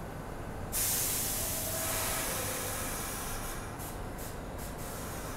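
Pullman Standard R46 subway car venting compressed air from its air brake system: a sudden loud hiss about a second in that tapers off over the next couple of seconds, then several short puffs of air.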